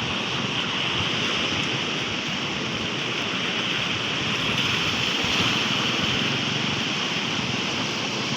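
Rough surf breaking at a river mouth: a steady rush of waves, swelling slightly about five seconds in.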